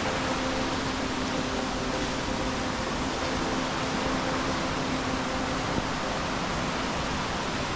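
Steady, even rushing noise with a faint low hum running under it.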